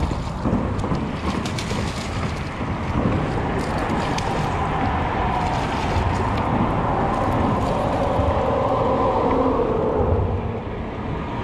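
Road traffic on the concrete bridges overhead: a steady rumble and tyre hum from passing vehicles.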